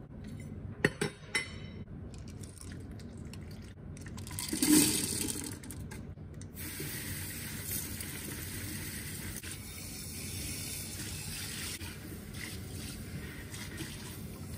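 A few sharp knocks about a second in, then water from a garden hose spray nozzle rinsing tumbled stones in a metal sieve over a plastic bucket: a brief louder rush about five seconds in, then a steady hiss of spray.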